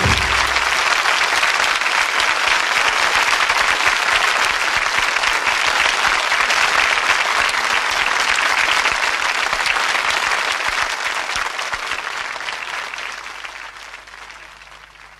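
Studio audience applauding, trailing off and fading away over the last few seconds, just after a short music sting ends.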